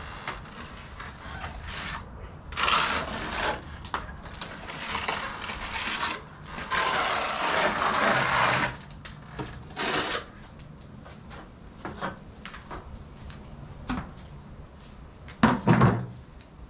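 Steel trowel scraping and spreading wet stucco finish coat across a ceiling patch, in several long rasping strokes with small taps in between. Near the end come a few sharp knocks, the loudest sounds.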